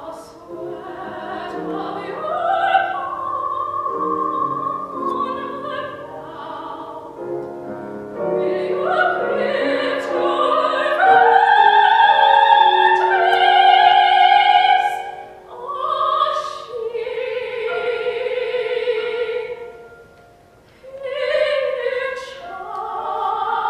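Soprano singing a classical art song with vibrato, accompanied by a grand piano. Long, loud high notes come in the middle, and the voice drops away briefly near the end before resuming.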